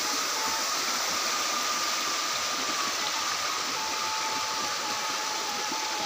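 Small forest stream running over rocks: a steady rush of water, with a faint thin steady tone behind it.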